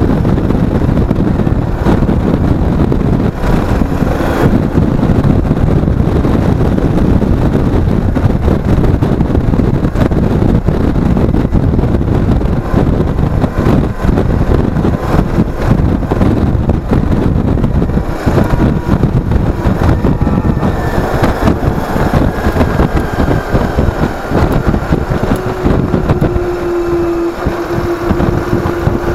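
Wind buffeting the microphone of an action camera mounted on a moving motorcycle, a loud, steady rush with the engine underneath. Near the end the wind noise eases and a steady engine note comes through.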